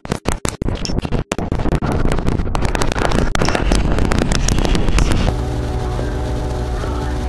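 Glitch-edited audio: a dense run of rapid stuttering clicks and brief cut-outs, then about five seconds in it switches abruptly to a steady drone with several held tones.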